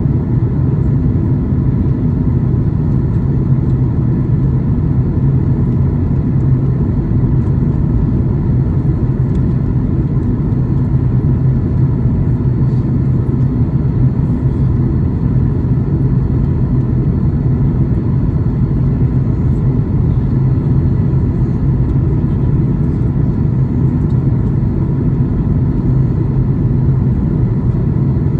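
Steady cabin noise inside a Boeing 737 MAX 8 in flight: a deep, even roar of airflow and its CFM LEAP-1B engines, with faint steady whining tones above it.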